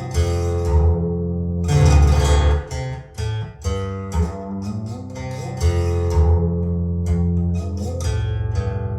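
Guitar music: plucked and strummed notes over a low line, with a brief drop in level in the middle.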